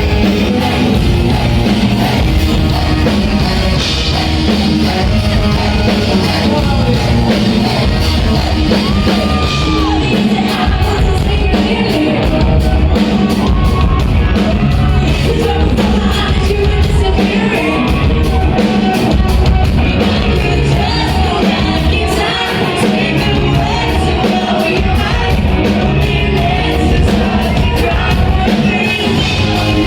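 A rock band playing live, loud and without a break, with yelled vocals over the music.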